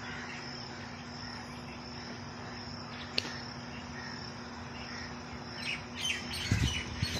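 Steady high chirring of insects, with a low steady hum beneath it. A single sharp click comes about three seconds in, and a few short bird chirps and low thumps come near the end.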